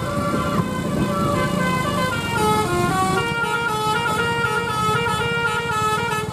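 Tour bus's telolet musical horn playing a tune: a run of held notes stepping up and down in pitch, coming quicker after about two seconds, over a low engine rumble.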